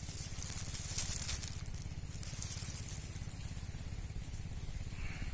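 Spinning fishing reel being cranked with a rattling, rustling sound as a hooked fish is reeled in and lifted from the water, loudest in the first few seconds. A steady low engine drone runs underneath.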